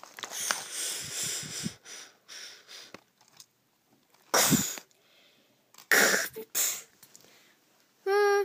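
A person making sound effects with their mouth for a toy train: a few short breathy hissing puffs, like a steam engine's chuffs, over light rustling, then a steady hooting toot starting just before the end.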